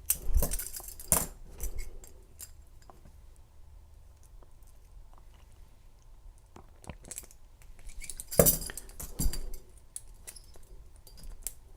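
Handcuffs being picked with a bent key-ring wire: scattered metal clicks and clinks from the cuff and its chain, loudest in clusters near the start and again about two-thirds through.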